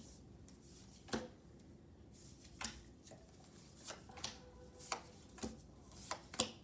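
Tarot cards being dealt off the deck and laid down one after another on a cloth-covered table: a string of sharp card snaps and light taps, about one a second at first and coming quicker in the second half.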